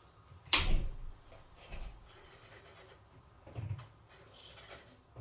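A loud, sharp knock about half a second in, then a fainter knock near two seconds and light handling noises: hard objects being handled during work on a boiler.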